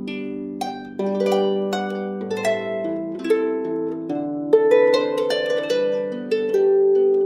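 Background music: a harp playing a melody of plucked notes over ringing bass notes.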